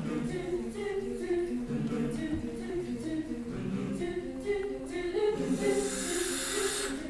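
Mixed a cappella choir singing held chords; a hiss swells up near the end.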